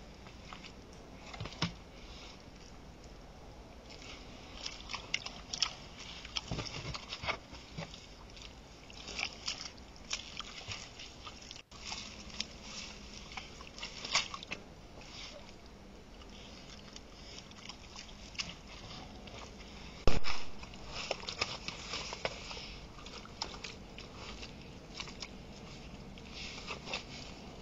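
Wild boar crunching and chewing maize at a feeder, with irregular crackling clicks and one louder knock about two-thirds of the way through.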